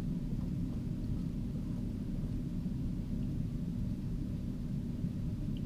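Steady low background rumble of room noise, with no distinct events.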